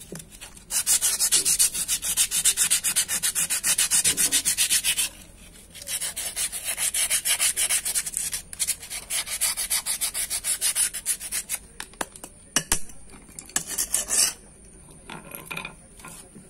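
Sandpaper scrubbed rapidly back and forth on the bare steel backing of a drum-brake shoe, sanding it down before a new lining is attached. Two long runs of quick, even strokes with a short pause between, then a few looser strokes that stop about two seconds before the end.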